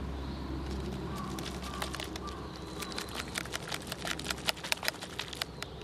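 Plastic Seychelle filter water bottle, filled with water and soil, being handled at the cap and raised: a run of sharp, irregular plastic clicks and taps starting about two seconds in and coming thicker toward the end, over a steady low outdoor rumble.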